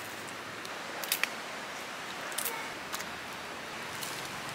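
Small wood fire crackling: a few sharp pops over a steady hiss.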